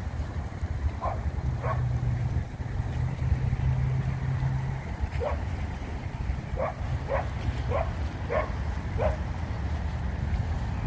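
An animal yapping: short, high calls, about eight of them, irregularly spaced and clustered toward the second half, over a steady low rumble.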